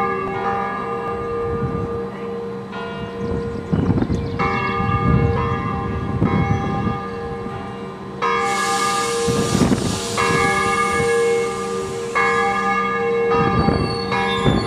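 Church bells ringing a peal: several bells struck again and again every second or two, their tones overlapping and ringing on. A rushing hiss joins for several seconds in the second half.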